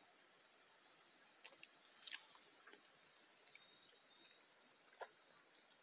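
Near silence with a few faint mouth clicks and smacks from chewing a freshly bitten araçá fruit, the clearest about two seconds in and another near the end.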